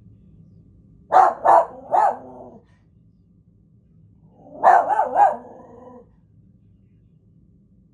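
Dog barking in two short runs of about three barks each, a few seconds apart.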